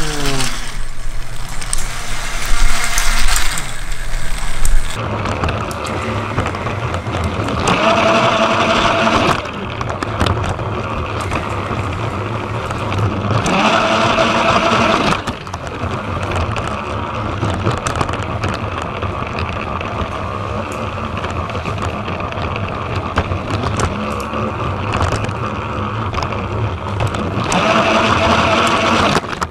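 Battery-powered TrackMaster toy train motors whirring and rattling along plastic track. A louder gear whine swells up three times as a train runs close. The first five seconds carry a louder, brighter hissing rustle.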